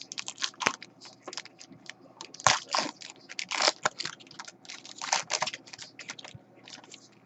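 Trading cards and a foil pack wrapper being handled: an irregular run of crinkling and rustling.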